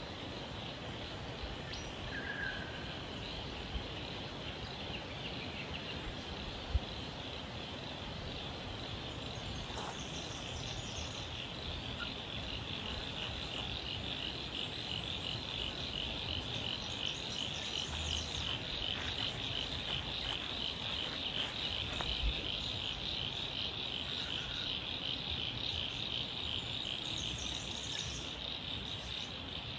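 Frogs and insects calling in a steady, high, fast-pulsing chorus that grows stronger after the middle, with a few faint sharp clicks.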